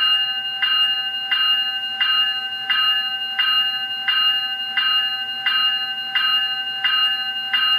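Electronic locomotive bell (e-bell) sound played by an ESU LokSound 5 sound decoder through the speaker of an HO-scale ScaleTrains GE C44-9W (Dash 9) model, ringing steadily with about one and a half strikes a second.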